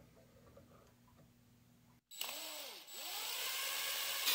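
Near silence, then a power drill starting about two seconds in. Its motor speeds up and slows in short pulses, then runs steadily as a twist bit drills out the hole of a small metal washer to take a thicker hinge screw.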